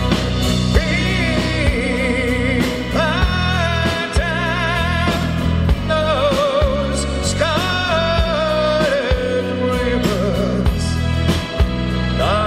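Live band playing with a male lead singer holding long notes with vibrato, over drums, bass guitar, electric and acoustic guitars and keyboard.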